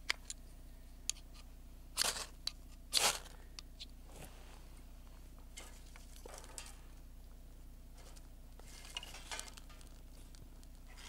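Two short, sharp scraping strikes about a second apart, from a fire starter struck over a dry-grass tinder bundle to light a campfire. A fainter rustle follows near the end as the tinder catches.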